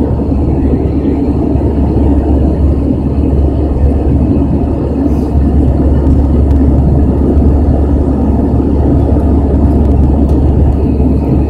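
Airbus A319 jet engines and airflow heard inside the cabin beside the wing-mounted engine during the climb after takeoff: a loud, steady, deep rumble.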